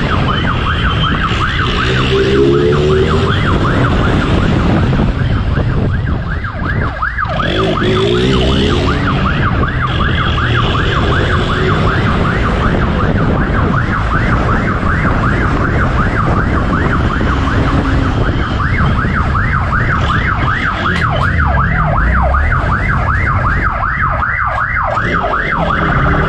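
Police siren sounding a fast, continuous yelp, each cycle rising and dropping several times a second, over a motorcycle engine running and revving during the pursuit.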